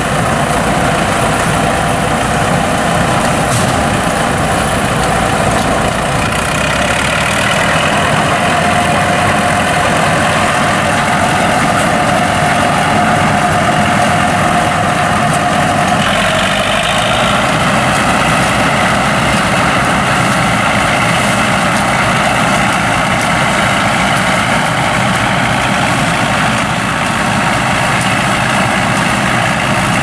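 Rostselmash SK-4 self-propelled combine harvester running steadily as it drives across the field: its diesel engine and machinery make a loud, continuous drone, with slight shifts in tone about a quarter and about halfway through.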